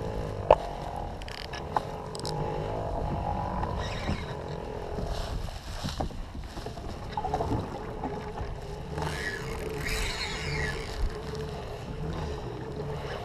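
Baitcasting rod and reel being worked from a kayak while playing a hooked snook, with two sharp clicks near the start, over the wash of water around the hull. A faint steady whine comes in about halfway.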